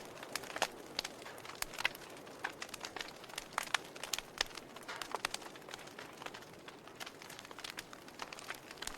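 Logs burning in a fireplace, crackling with irregular sharp pops and snaps over a soft, steady hiss.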